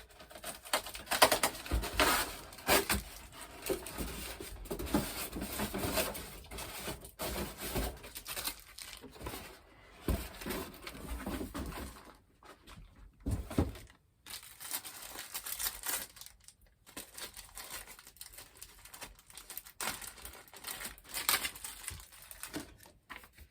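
Packaging being handled: irregular rustling, crinkling and clicking of plastic and cardboard as items are taken out of a model-airplane box, with a couple of brief quieter pauses.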